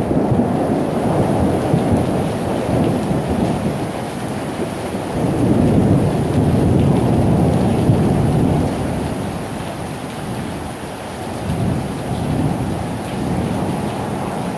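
Thunderstorm: steady heavy rain with long rolls of thunder rumbling through it, swelling about five seconds in and fading toward the end.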